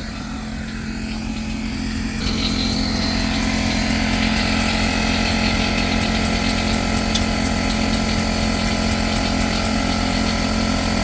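A machine's engine or motor running steadily, building up over the first two seconds and then holding an even pitch.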